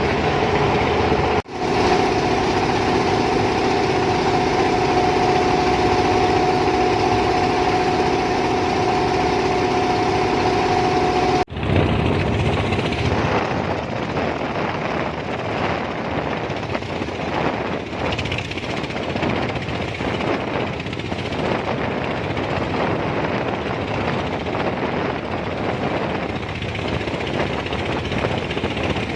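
Fishing boat's engine running steadily, with brief dropouts about a second in and near twelve seconds. Up to the second dropout a steady hum with a clear held tone; after it a rougher, noisier sound.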